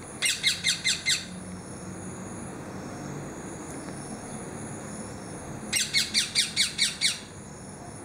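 Juvenile rose-ringed parakeet begging for food: two bouts of quick repeated high calls, about five notes a second, each note dipping slightly in pitch. The first bout of about five notes comes right at the start, the second, of about seven notes, a little past the middle.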